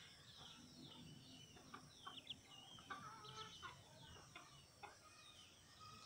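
Faint clucking of a rooster, with many short high bird chirps scattered around it.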